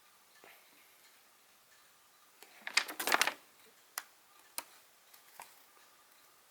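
Unboxing handling of the fan's packaging and paper manual: a short burst of crinkling about two and a half seconds in, followed by a few single sharp clicks.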